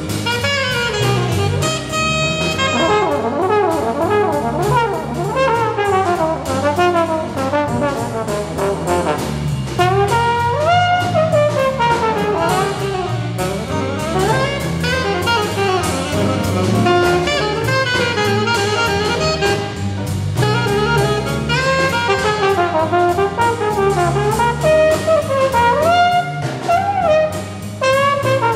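Live jazz ensemble: alto saxophone and trombone playing melodic lines over a rhythm section of drum kit, bass and piano, with the drums keeping a steady beat on the cymbals.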